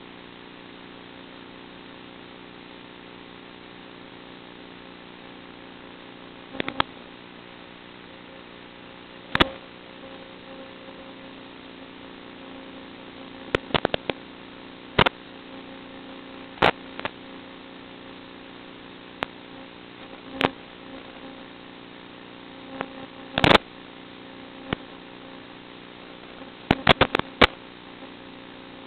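Steady electrical hum with several steady tones on a landed FPV quadcopter's onboard audio feed, broken by scattered sharp clicks and pops, with a quick cluster of them near the end.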